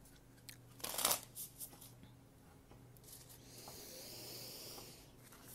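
Tarot cards being handled and shuffled, quietly: a short burst of card noise about a second in with a few light clicks after, then a soft sliding hiss near the end.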